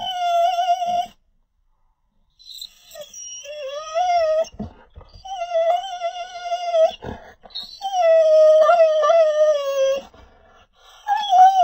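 Schnauzer whining in a series of long, high, wavering whines with short breaks between them, demanding to be let out of the car.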